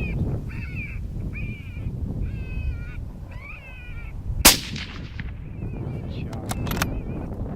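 A predator call sounds a string of short, wavering calls, a bit faster than one a second, that stop about three and a half seconds in. About a second later a .22-250 rifle fires a single shot at a coyote, a sharp crack. Wind rumbles on the microphone throughout, and a few sharp clicks come near the end.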